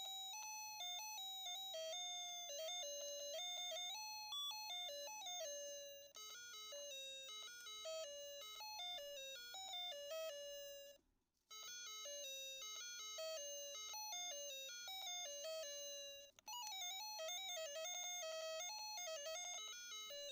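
A simple electronic melody of tinny, beeping single notes, like a ringtone or a toy's music chip. It breaks off briefly around six seconds in, stops completely for a moment around eleven seconds, and restarts.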